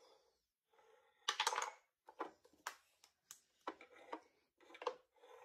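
A string of short wooden clacks and knocks as flat wooden pieces are pushed through and drop inside a wooden shape-sorting toy box, mixed with a toddler's small hand claps. There is a quick cluster of knocks a little over a second in, then single sharp taps about every half second.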